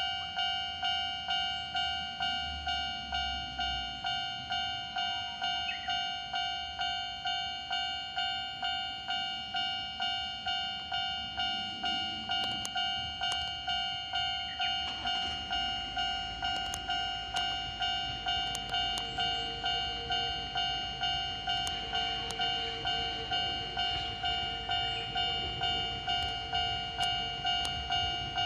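Railway level-crossing alarm ringing over and over, about one and a half strikes a second. From about fifteen seconds in, the low rumble and wheel clicks of a Hakone Tozan Railway 2000-series train pulling away and coming closer join it.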